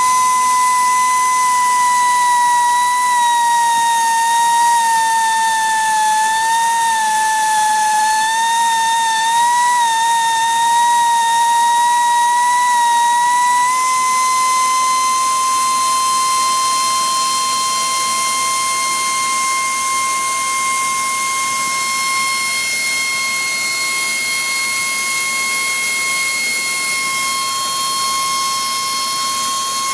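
Gison GPD-231 air-powered drilling machine, its pneumatic motor running with a steady high whine. The pitch sags and wavers for several seconds in the first half as the bit is fed into the concrete wall, then holds steady and slightly higher.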